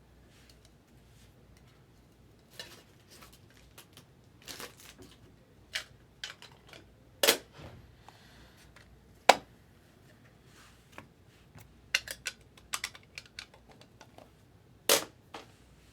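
Hands opening and handling a trading-card box and its packaging: scattered rustling, tearing and light clicks, with a few louder sharp clicks or knocks.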